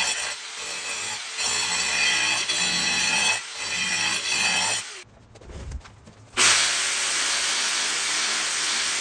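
Angle grinder with a sanding disc working over a wooden block, a loud even grinding hiss that dips briefly a few times. About halfway there is a short quiet gap, then a grinder with a foam-backed sanding pad sands with a steady hiss.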